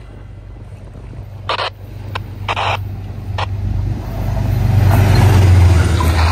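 Amtrak diesel locomotive approaching at speed and passing close, its low engine drone growing steadily louder from about three and a half seconds in, followed by the rumble of its Amfleet coaches on the rails. Two short bursts of noise come about a second and a half and two and a half seconds in.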